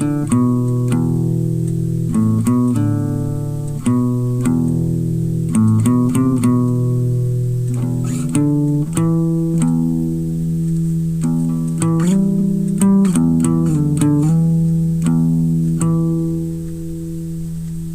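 Guitar played solo: picked notes and chords ringing into one another, with the last chord left to ring out near the end.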